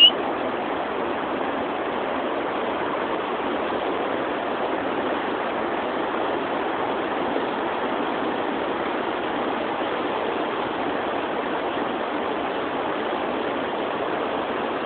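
Steady, even rush of river water.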